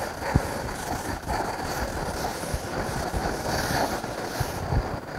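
Chalkboard duster scrubbing back and forth across a chalkboard, a rough, noisy wiping with a few short knocks.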